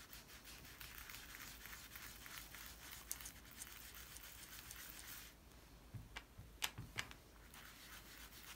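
Foam ink-blending pad rubbed over paper in quick small strokes, a faint soft scratchy hiss. It pauses about five seconds in, with a few light taps, and the rubbing starts again near the end.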